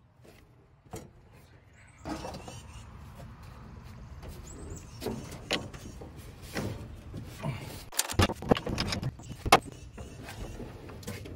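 Metal clinks, knocks and scraping as a screwdriver pries at the steering shaft coupler on the steering box input shaft, over a steady background noise that starts about two seconds in. The knocks come thickest in the second half, the loudest one near the end.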